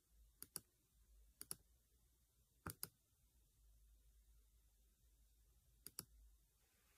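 Four pairs of faint, quick clicks, each pair a tenth of a second or so apart, against near silence. They fit a device being operated to pick the next song to play.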